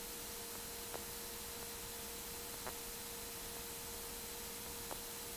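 Faint steady hiss with a low steady hum tone from an aircraft headset intercom and radio audio feed, with a few faint clicks.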